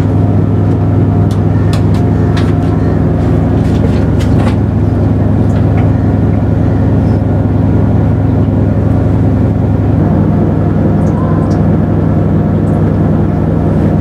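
Haier top-loading automatic washing machine running its spin cycle with a full load: a loud, steady hum as the drum spins. The load is evenly balanced, so the drum runs smoothly without knocking against the tub wall.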